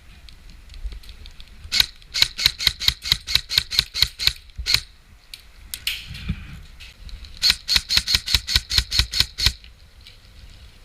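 Airsoft gun firing: two strings of rapid sharp shots, about five a second, the first lasting about three seconds and the second, starting about seven and a half seconds in, about two seconds.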